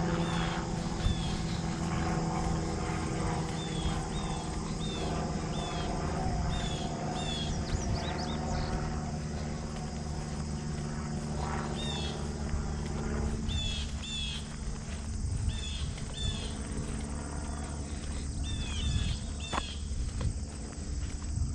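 Birds chirping in short, repeated notes over a steady high drone of insects, with a low hum underneath.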